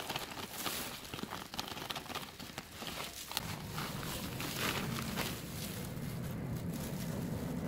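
Potting soil being poured from a plastic bag into a plastic flower pot and then pressed and scooped by a hand in a disposable plastic glove: crackly rustling and gritty patter of soil, with plastic crinkling. A low steady hum comes in about halfway through.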